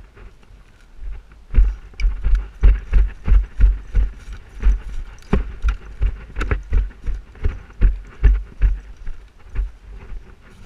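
Running footsteps, about three a second, heard as heavy thumps with gear jostling on each stride.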